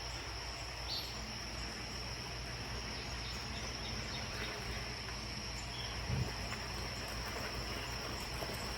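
Steady outdoor insect chorus, a constant high buzz over a quiet background hiss, with one faint knock about six seconds in.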